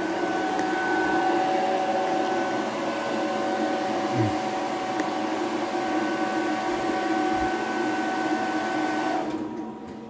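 Hair dryer running steadily on low speed, blowing into a duct, then switched off about nine seconds in, its whir falling away to a quieter background hum.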